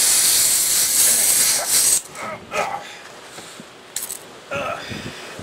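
Pressurised air hissing out of a punctured truck tire through the reamed hole once the reaming tool is pulled out. The hiss is loud and steady, then cuts off suddenly about two seconds in.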